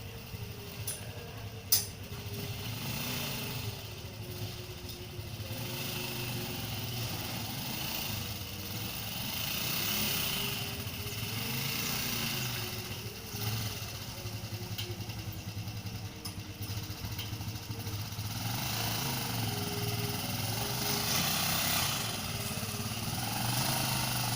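Small engine of a farm machine running steadily, with a low hum whose pitch wavers slightly, and a single sharp click about two seconds in.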